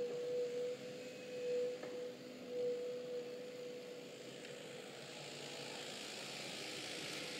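JCB 8085 ECO midi excavator running and working its digging arm, with a steady whining tone over the engine. The whine swells three times in the first three seconds as the boom and bucket move, then holds level.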